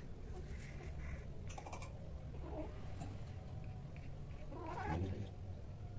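Cat yowling while mating, a short faint call about two and a half seconds in and a longer, louder yowl near the end.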